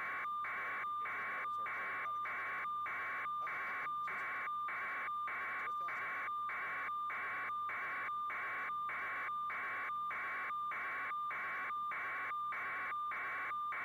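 Electronic noise: a band of hiss with a steady beep-like tone in it, chopped by short even gaps about two and a half times a second in an unchanging rhythm.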